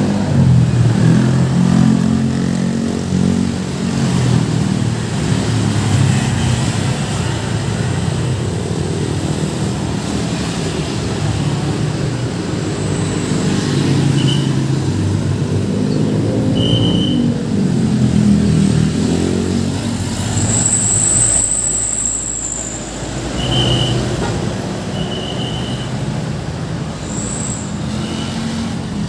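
Road traffic: engines of passing vehicles rumbling steadily, one rising and then falling in pitch about halfway through. A few brief high squeaks sound over it, and a longer high squeal comes about two-thirds of the way in.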